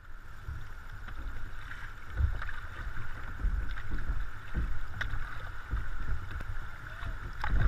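Shallow river water rippling and rushing around a paddled canoe, with a few short paddle splashes or knocks. Wind rumbles on the microphone.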